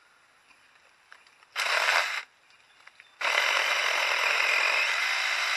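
Small handheld power saw for pruning, run in a short burst about one and a half seconds in, then started again about three seconds in and run steadily.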